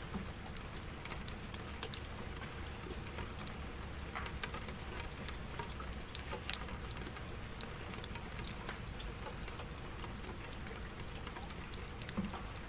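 Steady rain falling, with scattered individual drops striking close by; one louder drop about six and a half seconds in and another near the end.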